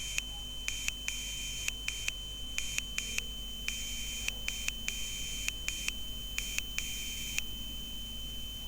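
Electronic buzzer driven by a Raspberry Pi Pico W, beeping Morse code: a high steady tone keyed on and off in a mix of short dots and longer dashes, each beep starting with a faint click. The beeps stop about three-quarters of the way in.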